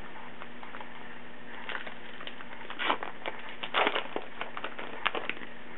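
A pack of baseball cards being torn open: the wrapper crackles and crinkles in an irregular run of sharp rustles for about three seconds, loudest around the middle.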